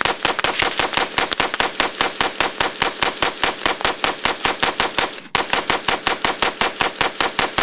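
Sig Sauer 556 SWAT pistol, a short-barrelled 5.56 mm gas-piston AR-type pistol, firing a long, rapid string of shots from a 60-round SureFire magazine, about six shots a second. There is one very brief break about five seconds in.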